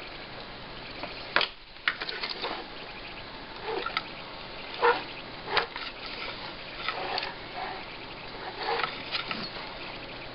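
Spring-loaded desoldering pump being cocked and fired several times with sharp snaps, among short rustling noises, while desoldering capacitors from a monitor's power board.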